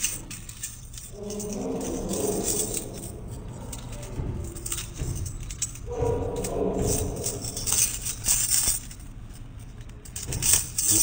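Light metallic jingling, like small metal pieces shaking, as someone walks.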